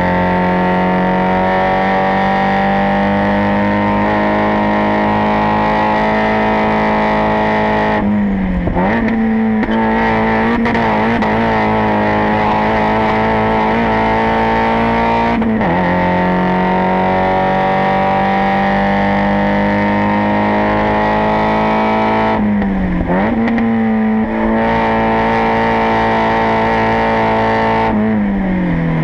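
Spec Miata race car's four-cylinder engine running hard at high revs, its pitch slowly climbing, then dipping sharply about four times as revs fall and pick up again.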